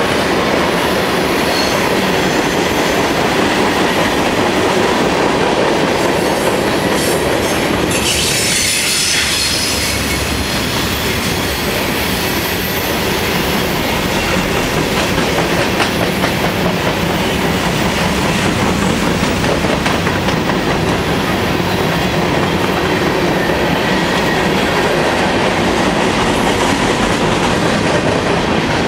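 Freight train tank cars and covered hopper cars rolling past close by on steel wheels, a steady rail noise throughout. A brief high squeal comes about eight seconds in.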